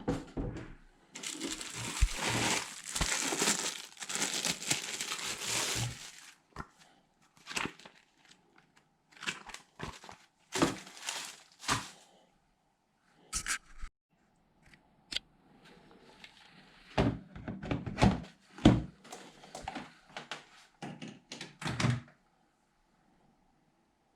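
Handling noises: a stretch of crinkling and rustling, then scattered knocks and clicks that come in short irregular bunches.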